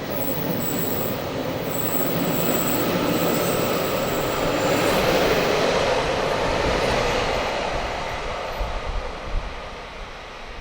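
731-series electric multiple unit running past, its wheels and motors swelling to a peak about five seconds in and then fading away, with a faint thin squeal at times in the first half.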